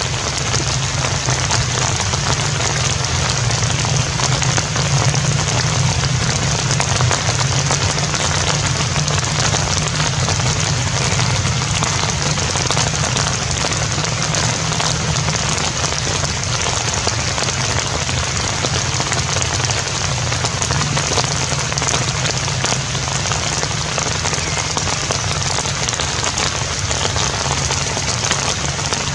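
Steady rain falling: an even hiss that does not let up, with a steady low hum underneath.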